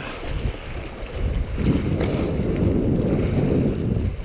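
Wind buffeting the microphone with a steady low rumble, over sea water washing against the shoreline rocks. There is a brief hiss about two seconds in.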